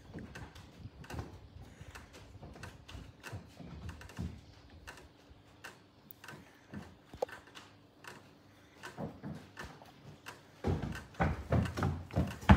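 Footsteps and light knocks on a wooden deck, scattered and quiet at first, then louder and quicker near the end as a child runs across the boards.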